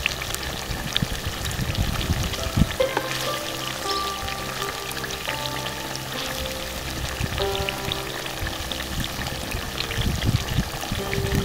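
Chicken curry sizzling and crackling in a clay pot over a wood fire, with many small pops. Light background music with held notes plays over it.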